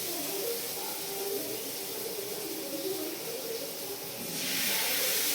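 Fish frying in hot oil, sizzling steadily; the sizzle gets louder a little after four seconds in.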